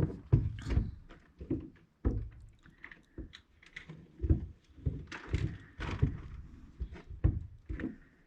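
Footsteps in fresh, dry snow, each step a dull crunch with a squeak, at an irregular walking pace of about two steps a second.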